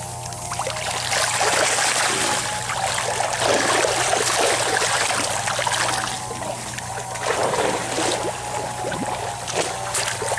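Water splashing and sloshing as a hand dip net is swept through a fish tank and lifted out, water pouring and dripping back from the mesh, in two spells. A steady low hum runs underneath.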